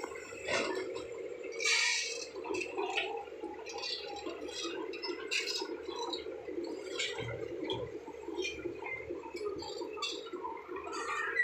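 Bulldozers working: a steady, rough engine drone with irregular clanks and scrapes over it.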